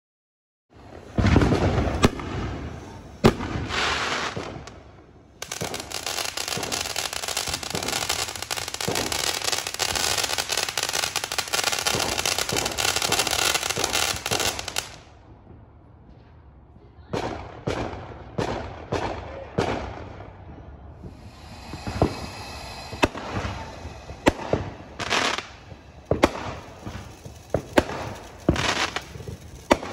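Consumer fireworks going off at close range. There are several sharp bangs in the first few seconds, then a steady hissing rush for about nine seconds. From about seventeen seconds in, a rapid string of sharp pops and crackles follows as aerial shells burst.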